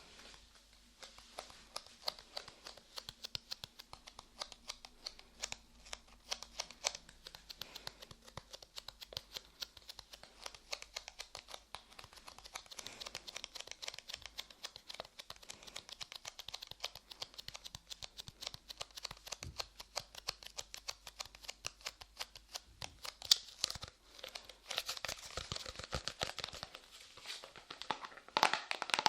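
Light clay pressed, squished and pulled on a microphone's ears, making a dense run of fine sticky crackles and clicks that gets busier and louder near the end.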